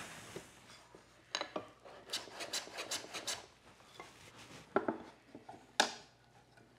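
Hand tool cutting a small chamfer along the back edge of a wooden cleat: a quick run of short scraping strokes about two to three seconds in, with a few sharp knocks of wood and tools, the loudest about six seconds in.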